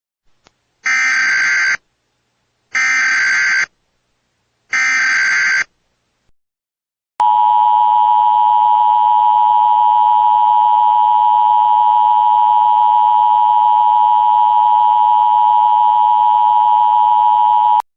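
Emergency Alert System tones: three short buzzy SAME header data bursts, about a second each, then the two-tone attention signal, a steady harsh dual tone near 1 kHz held for about ten seconds that cuts off just before the end. The sequence marks the start of an emergency alert, here a tornado warning.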